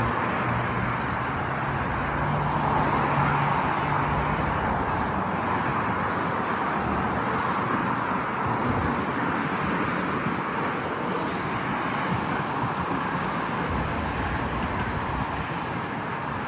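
Steady street traffic noise: a continuous rush of passing vehicles, with a low engine hum during the first few seconds.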